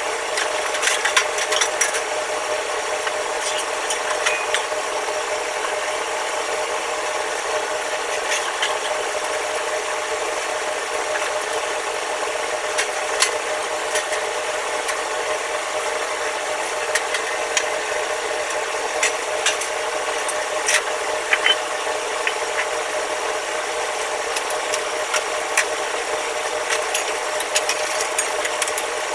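Brushing, wiping and scraping on a stainless-steel wok range and its burner rings, with scattered sharp clicks and metal clatter, over a steady machine hum.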